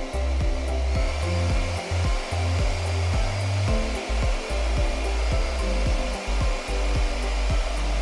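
Hand-held hair dryer running steadily, a continuous rush of blown air, under background music with a steady beat.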